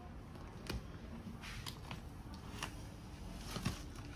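Plastic-wrapped packs of clothing being handled, crinkling and crackling in a run of short sharp crinkles and taps over a low room hum; the sharpest comes near the end.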